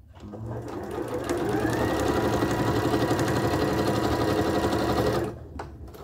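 Sewing machine stitching fabric scraps together: the motor speeds up over about a second, runs at a steady pace, then stops near the end.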